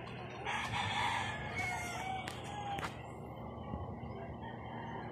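An animal call lasting about two and a half seconds, starting about half a second in, with two sharp clicks near its end, over a steady low hum.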